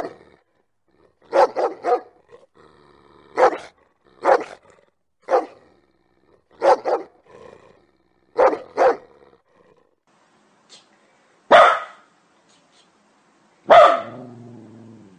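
Dogs barking: a dog gives deep single barks and quick groups of two or three, spaced about a second apart. After a short pause come two louder, sharper barks, the last trailing off into a lower drawn-out sound.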